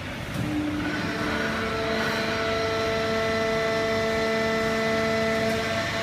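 Automatic horizontal cardboard baler with its feed conveyor running: a steady machine noise with several steady whining tones that come in over the first second or so and then hold.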